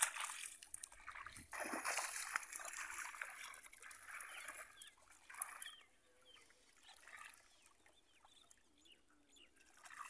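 Shallow water splashing and sloshing as hands grope inside a bamboo polo fish trap set down in the water. About halfway through the splashing dies down, leaving faint bird calls.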